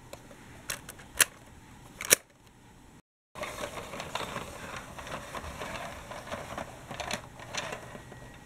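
Dickie Toys City Liner plastic toy tram handled at its doors: a few light clicks and two sharp snaps about a second apart. After a brief break, the tram rolls along plastic track with a steady dense clicking rattle from its wheels.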